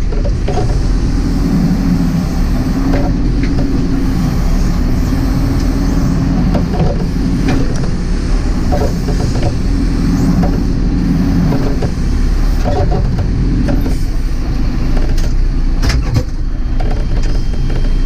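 JCB 4CX backhoe loader's diesel engine running under hydraulic load as the backhoe arm and bucket work the slope, heard from inside the cab; the engine note swells and eases every few seconds, with occasional short clanks and knocks.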